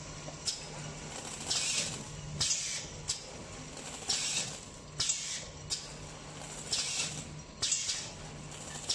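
Automatic shrink-wrapping machine's sealing section cycling, with air cylinders driving the sealing frame. About every two and a half seconds there is a sharp click and two short bursts of air hiss, over a steady low hum.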